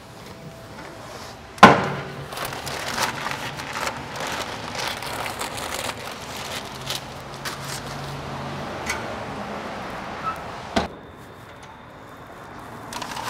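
Butcher paper crinkling and rustling as a paper-wrapped brisket is handled and laid on a smoker's grate, with a sharp knock about two seconds in and a shorter click near the end.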